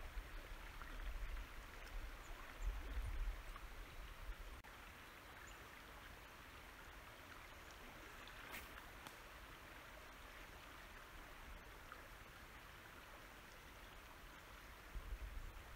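Steady, quiet rush of the Pere Marquette River's current flowing past the bank and logs. A low rumble comes and goes in the first few seconds and again near the end, and a single faint click sounds about halfway through.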